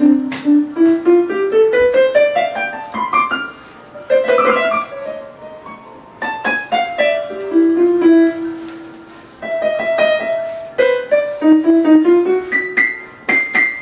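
Casio LK-300 electronic keyboard sounding a piano-like voice: a quick rising run of notes over the first few seconds, a chord about four seconds in, then a slower melody of single held notes.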